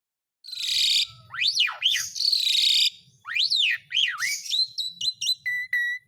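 Asian pied starling (jalak suren) singing: harsh, raspy notes alternating with loud whistles that swoop up and down, ending in a quick run of short clipped whistles. The song starts about half a second in.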